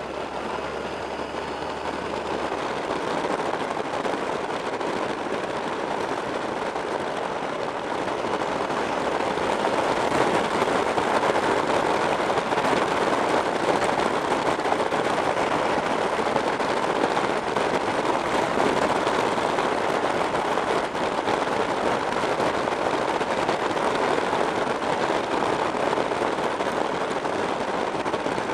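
Wind rushing and buffeting over the microphone of a camera on a moving motorcycle, mixed with the bike's engine and road noise. It grows louder about eight to ten seconds in.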